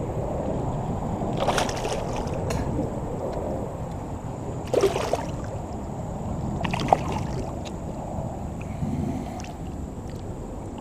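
Splashing and sloshing in shallow creek water as a hooked common carp is handled and lifted by hand, with a few sharp splashes about a second and a half, five and seven seconds in over a steady low rush of water.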